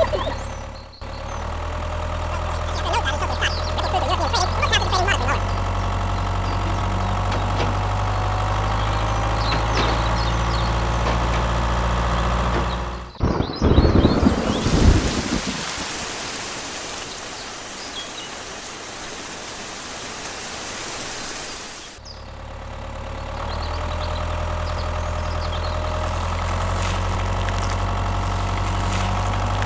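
Small motor of a DIY mini tractor running steadily with a low hum and a faint whine. A short loud clatter comes about halfway through, followed by several seconds of steady rushing hiss, before the motor hum returns.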